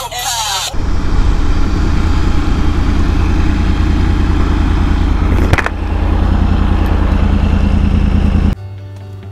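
Motorcycle riding as picked up by a helmet camera: the engine and heavy wind rumble on the microphone, steady and loud, with one brief click about five and a half seconds in. Music plays for a moment at the start and cuts back in abruptly near the end.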